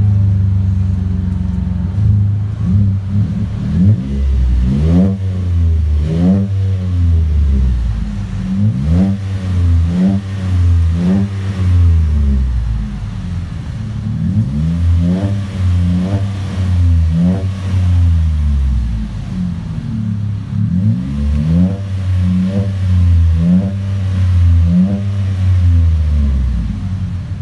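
2017 Chevrolet Colorado's 3.6-litre V6 running through a Flo-Pro split dual performance exhaust: steady idle at first, then a long series of quick free revs in clusters, the exhaust note rising and falling with each blip.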